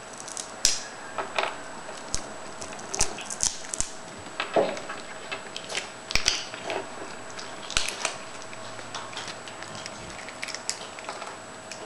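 Cats crunching and chewing dried sardine treats: irregular crisp crunches and clicks with short pauses between them.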